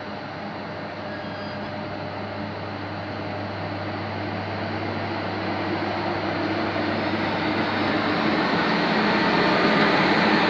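An SNCF BB 22200 electric locomotive hauling Corail coaches approaches, the train noise growing steadily louder.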